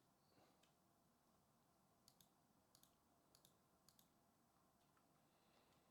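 Near silence with a handful of faint clicks, several in close pairs about a tenth of a second apart.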